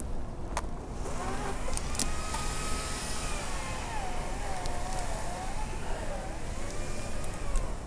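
Wind rumbling on a helmet-mounted action camera's microphone high in a tree, with a few sharp clicks and a faint wavering tone that rises and falls in pitch.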